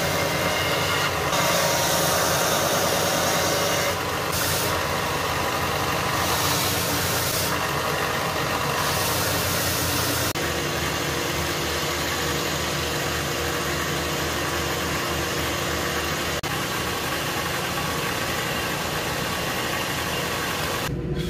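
Stationary belt sander running under load as the edge of a laminated walnut-and-maple canoe paddle blade is pressed against the belt to shape its taper. It makes a steady grinding rush, with brief louder surges in the first half where the wood bears harder on the belt.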